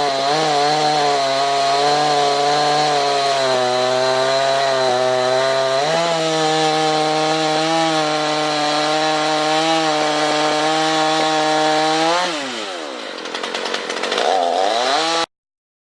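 Husqvarna 281 two-stroke chainsaw engine held at high revs during a test and tune after its rebuild, with a small dip in pitch for a couple of seconds. About twelve seconds in the throttle is released and the revs fall away, then it is blipped once before the sound cuts off suddenly.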